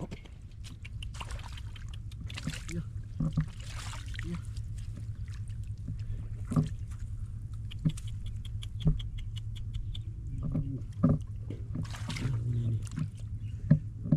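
Water splashing and sloshing in shallow flooded field water, with surges of splashing and scattered sharp knocks over a steady low rumble.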